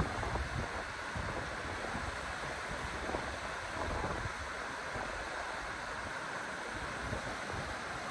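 Wind buffeting the microphone in gusts over the steady rush of river water, with a brief thump right at the start.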